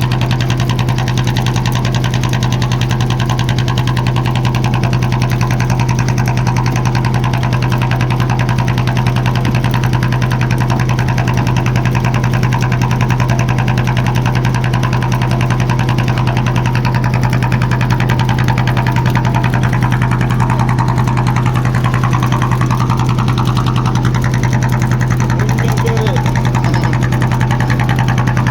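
Small fishing boat's engine running steadily at an even speed, a loud constant low drone with rapid firing pulses.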